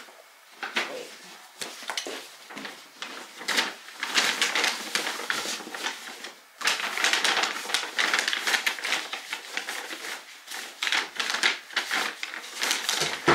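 Brown paper bags rustling and crinkling as they are handled, opened and folded shut, in irregular bursts with a short lull about six seconds in.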